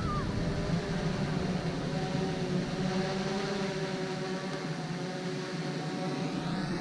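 Steady motor hum with several steady tones over a noisy rush; near the end a whine rises quickly in pitch and holds.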